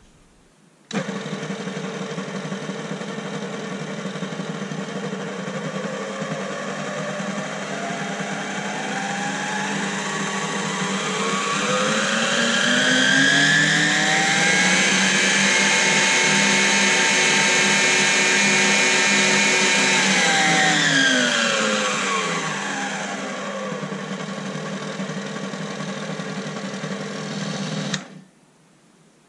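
Kenwood Chef stand mixer's motor switched on and running with a steady whine. About a third of the way in, its pitch rises smoothly to a higher speed, holds there, then drops back as the speed knob is turned, before the motor is switched off suddenly near the end. The rise and fall with the knob shows the repaired speed-control circuit board controlling the motor speed.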